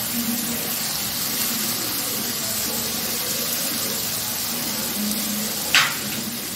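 Raw prawns sizzling in hot oil in a steel kadai over a high gas flame: a steady frying hiss. One short sharp clink comes near the end.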